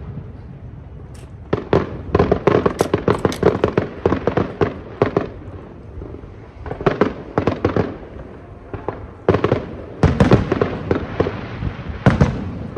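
Aerial fireworks bursting in rapid volleys of sharp bangs and crackles, starting about a second and a half in, with short pauses between volleys.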